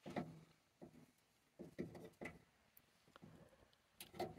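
Near silence: workshop room tone with a few faint, brief handling noises.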